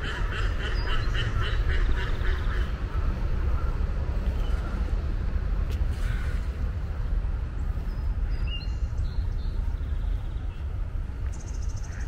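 A duck quacking in a quick run of calls, about four a second, stopping about two and a half seconds in. Under it runs a steady low rumble, and a few faint small-bird chirps come later.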